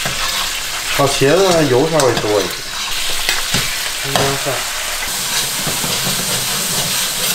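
Chili bean paste sizzling in hot oil in a wok, stirred with a metal ladle, with chopped scallion tipped in partway.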